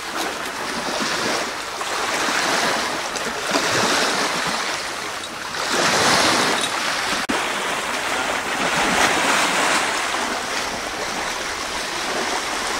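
Sea water washing and lapping in swells, rising and falling every couple of seconds, loudest about six seconds in.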